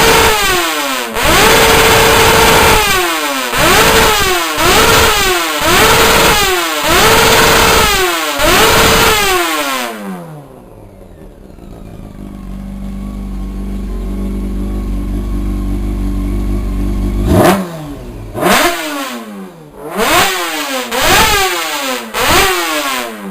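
Honda CBR 600's inline-four engine with a Sarachú aftermarket exhaust being blipped in a rapid series of sharp revs, some held briefly at high rpm, loud and throaty. About ten seconds in it drops to a steady low idle for several seconds, then is snapped up again with a sharp rev and a run of quick revs.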